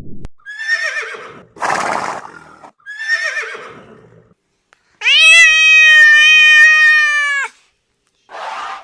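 Horse whinnying twice, each a wavering high call, with a short rough noisy blast between the two. About five seconds in comes a loud, steady held tone lasting about two and a half seconds.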